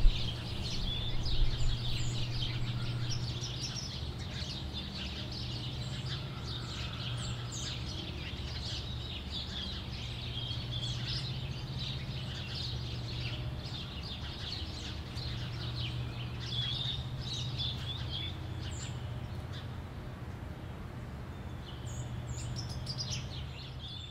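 House sparrows chirping continuously, many short overlapping chirps, over a steady low hum.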